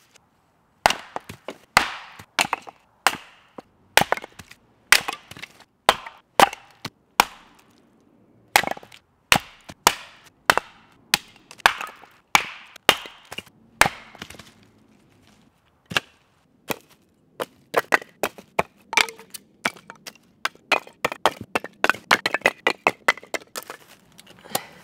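Small wooden-handled hatchet splitting a log on a chopping stump: sharp wooden strikes, one or two a second, with a quicker run of lighter knocks near the end.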